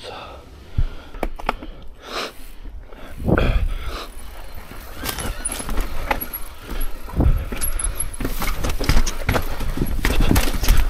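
Mountain bike riding over a rough dirt-and-rock trail: tyres rolling and the bike rattling and knocking over bumps, getting busier and louder in the second half, over a steady low wind rumble.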